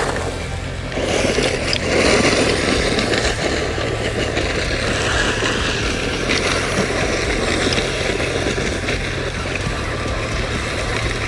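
HSP XSTR Pro 1/10 scale brushless electric RC buggy running across loose gravel, its motor and tyres making a steady noise of churning stones.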